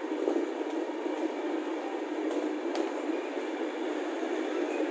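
Steady rumble and rattle of a passenger train running through a station, heard from aboard, with two sharp clicks, about a third of a second in and near three seconds.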